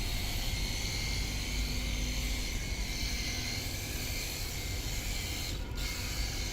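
Cordless pressure washer gun spraying water in a steady hiss, with its pump running underneath; the spray hiss drops out briefly near the end.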